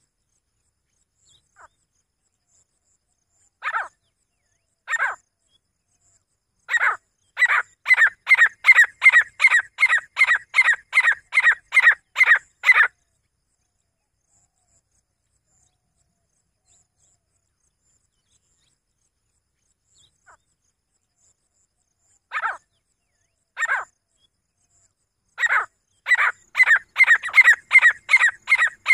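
Grey francolin calling: two single notes, then a fast run of loud repeated notes, nearly three a second, lasting about six seconds. After a long pause the pattern starts again, with two single notes and then another fast run near the end.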